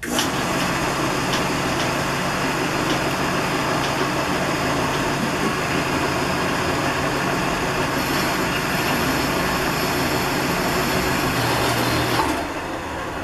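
Horizontal metal-cutting band saw starting up and cutting through a steel tube: a steady motor hum with blade noise. About twelve seconds in the saw shuts off and its sound winds down.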